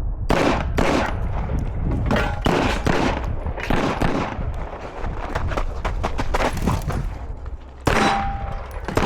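A firearm fired in a fast string of about a dozen shots during a timed IDPA stage, many of them in quick pairs with short pauses between groups.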